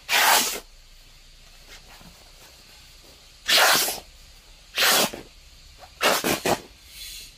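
Shell fabric of a down jacket being ripped open by hand. There are four short tearing rips: one at the start, two more in the middle, and a last one near the end that comes in three quick tugs.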